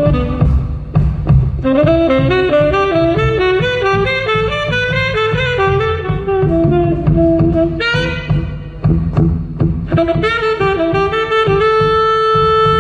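Tenor saxophone soloing in fast runs of notes over a live jazz-fusion band, with bass and drums driving underneath.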